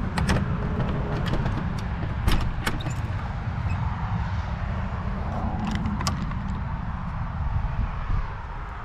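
Metal door hasp being swung shut and fastened on old wooden doors: a few sharp metallic clicks and rattles in the first three seconds and two more about six seconds in, over a steady low rumble.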